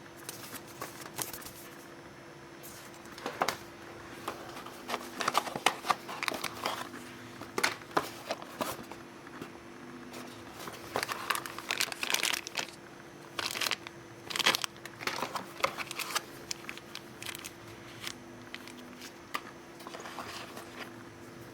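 Packaging being handled and crinkled in irregular spells during a camera unboxing, over a faint steady hum.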